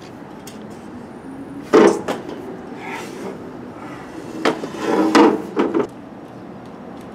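Knocks and clatter of a woven patio lounge chair being shifted and handled: one loud knock about two seconds in, then a cluster of knocks and rattles around five seconds.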